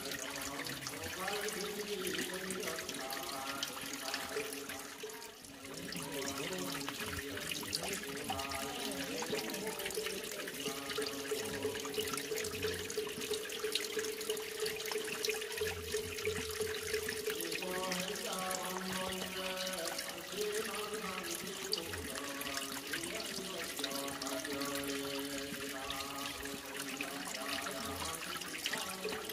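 Spring water trickling steadily from a rock crevice and splashing onto wet stone. Under it, Buddhist chanting is heard in the background, sliding and holding long notes.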